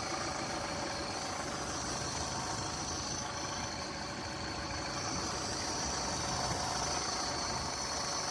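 Yamaha F150 four-stroke four-cylinder outboard idling roughly with an uneven chug. It is a rough idle that the owner suspects comes from an air leak at the intake.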